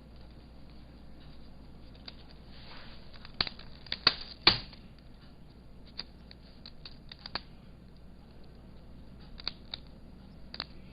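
Hands handling a replacement laptop screen panel and its parts: scattered small clicks and taps, with a louder cluster of sharp clicks about four seconds in.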